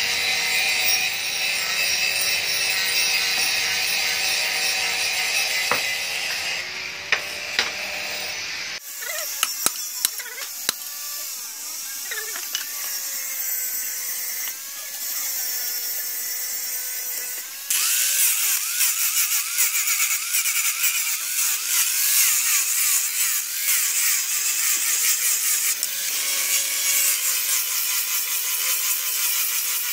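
Electric angle grinder with a sanding pad sanding a wooden axe handle, running with a harsh, high hiss that grows louder about eighteen seconds in. Before that, a different steady sound cuts off sharply about nine seconds in.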